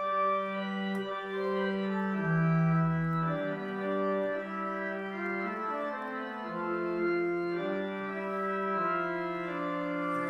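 Virtual pipe organ, Hauptwerk software sounding pipe-organ samples from St. Anne's Church, Moseley, played from keyboards. It plays several held notes at once that move in slow counterpoint, and a deep bass note sounds briefly about two seconds in.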